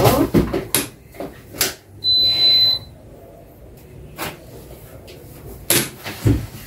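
A single steady, high-pitched electronic beep lasting under a second, about two seconds in, the loudest sound here. Around it come sharp clicks and knocks of hard objects being handled on a kitchen counter.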